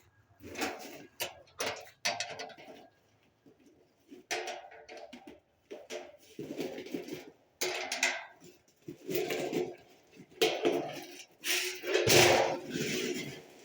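Spanner and metal satellite-dish fittings clinking and scraping as nuts and bolts are tightened, in irregular short bursts, the loudest near the end.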